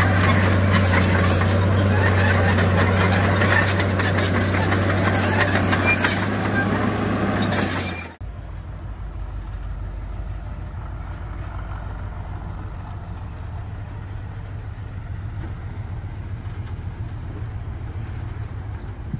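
Heavy diesel construction machinery running loud, with many small knocks and rattles over a steady low engine hum. About eight seconds in it cuts off abruptly to a much quieter, steady low engine rumble.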